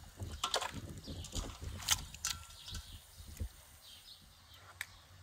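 Irregular sharp knocks and clicks, most in the first three and a half seconds, with a short squeak among them, over birds chirping in the background.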